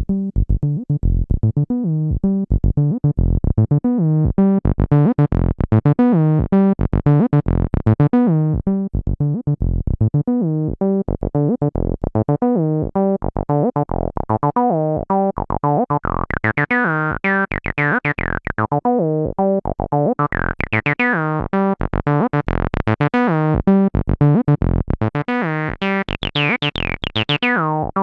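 Behringer TD-3 acid bass synth playing a fast sequenced bassline of short notes, about four to five a second. The filter cutoff is swept open and closed, so the notes turn brighter and squelchier, then duller, in waves.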